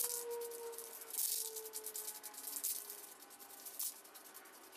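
Aerosol spray paint can hissing in short bursts as enamel is sprayed onto metal clamps, the longest burst about a second in and shorter ones after.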